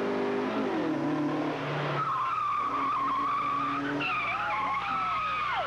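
Race car engine note dropping as the driver lifts, then tyres squealing hard through a corner. The squeal wavers, more squeals overlap about four seconds in, and one slides down in pitch near the end.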